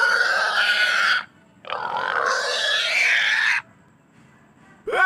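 An animal's calls: two long, rough, grunting calls, each lasting one and a half to two seconds, with a short break between them.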